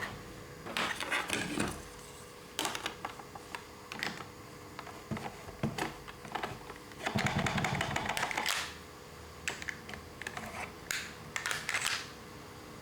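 Plastic toy pieces being handled: irregular clicks, taps and clatter, with a longer rustling scrape about seven seconds in.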